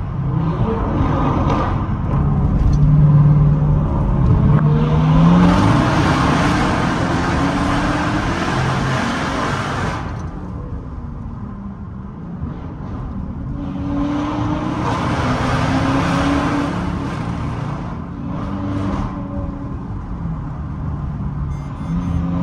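A car's engine pulling hard through two accelerations, each bringing a swelling rush of road and wind noise that fades again. The first surge is the louder and longer.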